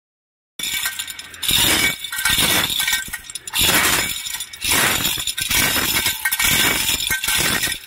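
Manual chain block (chain hoist) being worked by pulling its steel hand chain hand over hand: the links rattle and clink through the hoist in repeated surges, about one pull a second, starting about half a second in.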